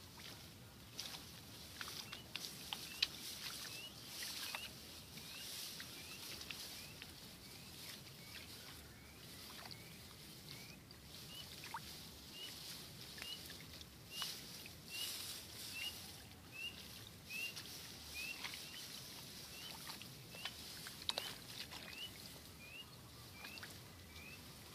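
Faint rustling and snapping of rice plants and weeds being pulled up by hand, with scattered small clicks. Behind it, a steady high hiss and a small animal's short rising chirp repeated about twice a second.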